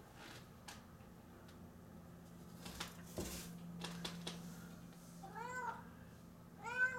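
Tabby cat meowing twice near the end, two short meows that rise and fall in pitch, the second louder. Before them come a few faint knocks over a low steady hum.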